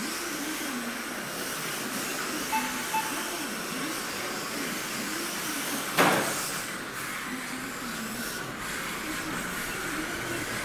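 Kyosho Mini-Z RC cars running on an indoor carpet track: a steady electric-motor whine and tyre hiss, with the pitch rising and falling as the cars accelerate and brake. Two short beeps come about two and a half seconds in, and a sharp knock about six seconds in.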